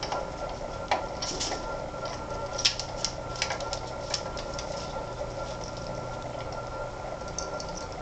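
A steady machine-like hum with scattered small clicks and taps from the cockatiels' beaks and feet working the wooden play stand and the leather-strung log toy.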